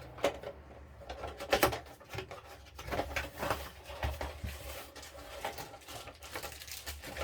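Hands handling and sorting through plastic model kit parts on a workbench: scattered light clicks, taps and rustles, the sharpest about a second and a half in.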